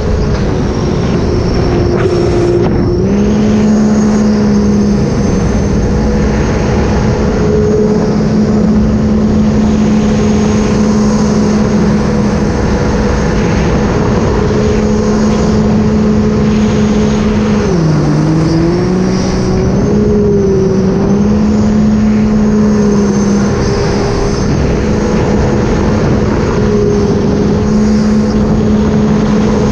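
Sea-Doo RXP-X 300 personal watercraft's supercharged three-cylinder engine running steadily under way. Its pitch dips briefly about two to three seconds in and again at about eighteen seconds as the throttle eases off, then comes back up.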